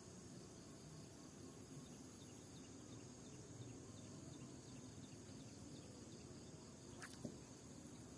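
Near silence: faint outdoor ambience with steady high insect chirring, and a single click about seven seconds in.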